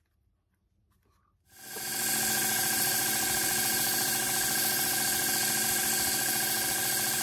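Bench belt sander starting up about a second and a half in, then running steadily as a piece of antler is held against the belt to shape it.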